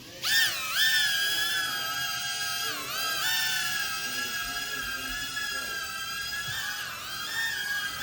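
A small remote-control helicopter's electric motor and rotors whine at a high pitch. The whine spins up about half a second in, then sags and recovers twice as the throttle changes, near three seconds and near seven seconds.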